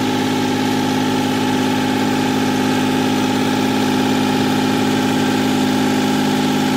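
Kioti CK3510 compact tractor's three-cylinder diesel engine running at a steady, unchanging low speed while the tractor backs slowly.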